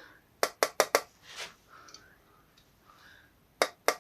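Light, sharp taps of a plastic screwdriver on connecting-rod big-end bearing shells, seating them flush in the rod: four quick taps about half a second in and two more near the end, with faint rubbing between.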